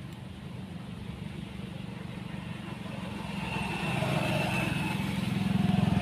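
A low buzzing drone with a fast even pulse, like a small engine, growing steadily louder toward the end.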